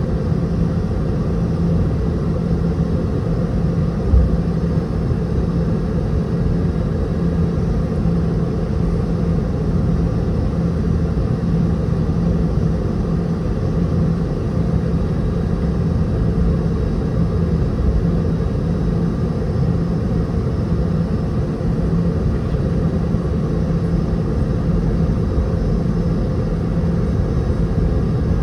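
Steady cabin drone of a Boeing 717-200's rear-mounted turbofan engines heard from inside the cabin: an even rumble with a constant hum, unchanging in pitch. A single brief knock about four seconds in.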